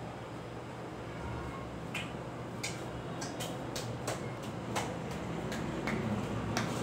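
Steady low hum, as of a running ceiling fan, with a run of short sharp taps from about two seconds in, roughly two a second.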